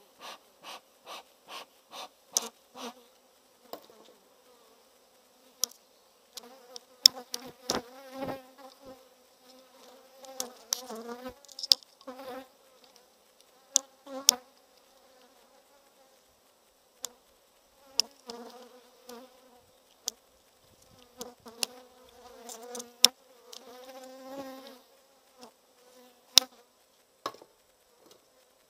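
Honeybees buzzing over an open hive in spells, from a colony in a bad temper. A smoker's bellows puffs about eight times in quick succession at the start, and sharp wooden knocks and clicks come from the hive's frames and cover being handled.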